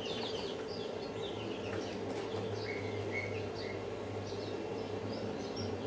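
Four-day-old chicks peeping: many short, high, falling cheeps in quick succession, over a steady low hum.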